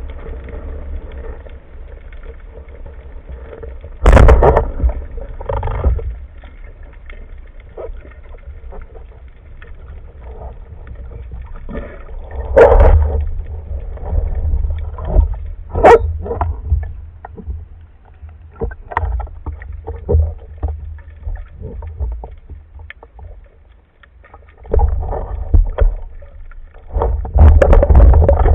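Underwater sound picked up by a spearfisher's camera: a constant low water rumble, broken by irregular knocks, scrapes and brief rushing noises, several of them loud.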